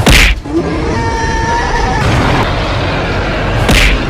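Cartoon fight sound effects: a heavy hit right at the start and another just before the end, over a steady noise bed.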